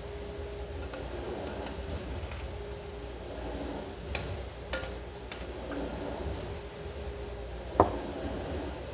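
A few light clinks of dishes or cutlery being handled, with one sharper knock near the end, over a steady low hum.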